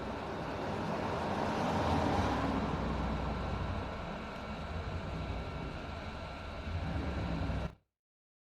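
Hot air rework station blowing steadily on a USB-C charging port to reflow its solder, a rushing air noise with a faint steady whine. It cuts off suddenly near the end.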